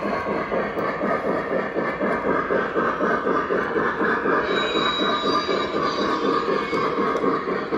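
Lionel Legacy Union Pacific 844 O-gauge model steam locomotive running, its onboard sound system giving a quick, steady chuffing rhythm over the running noise on the track. A thin high squeal comes in about halfway through.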